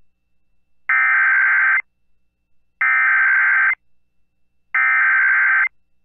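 Emergency Alert System SAME header: three bursts of harsh digital data tones, each about a second long with about a second between them. This is the coded header that opens an EAS alert broadcast.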